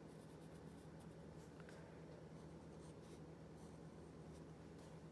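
Faint scratching of a graphite pencil on paper, in short, irregular strokes as lines are darkened, over a steady low hum.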